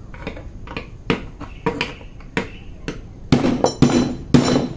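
Metal car door check clamped in a bench vise being tapped to seat its parts tight: a string of sharp metallic knocks, coming faster and louder with a slight ring in the last second and a half.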